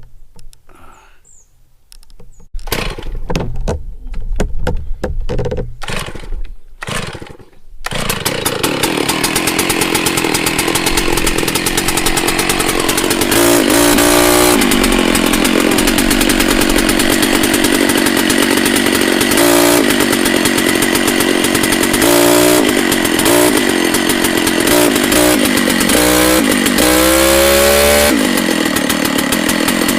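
Two-stroke chainsaw being pull-started: the engine turns over in a string of short strokes, catches about eight seconds in, then runs steadily and is revved up several times.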